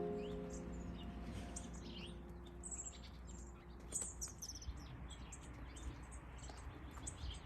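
Small birds chirping and calling, many short high notes scattered throughout, over a low steady background rumble; soft music fades out in the first second.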